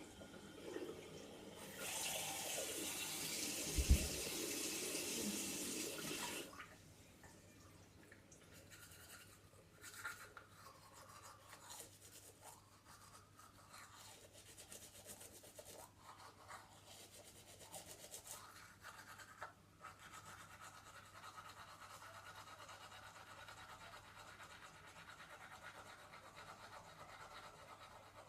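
Water running hard into a bathroom sink for about five seconds, with one knock in the middle, then faint, irregular toothbrush scrubbing.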